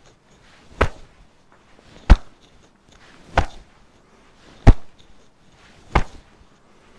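Open hands slapping against the shoulders as the arms swing loosely across the body: five sharp slaps, about one every 1.3 seconds. This is qigong self-striking aimed at the point where the shoulder meets the neck, to loosen tight shoulders and neck.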